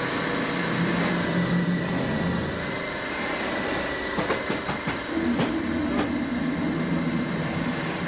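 A steady mechanical rumble and hiss with a faint high whine, broken by a few sharp clicks around the middle.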